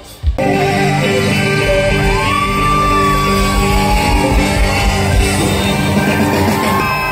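Live concert music with a singer over the stage loudspeakers and the crowd shouting along. A brief dropout at the very start, then the music runs on.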